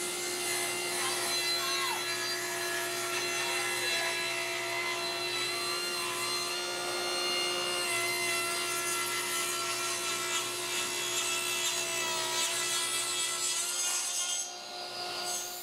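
Table saw blade ripping lengthwise through a green elm branch, a steady motor hum under the dense noise of the cut. The cutting noise stops near the end while the saw keeps running.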